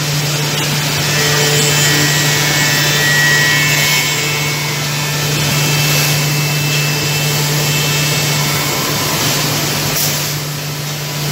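Woodmaster multi-head CNC mortise-milling machine running, its router spindles cutting mortises in wooden parts: a dense, steady milling noise over a constant low hum.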